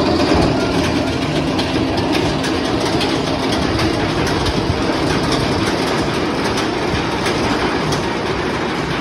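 Bolliger & Mabillard hyper coaster train running on its steel track: a steady rumble with a run of sharp, irregular clicks.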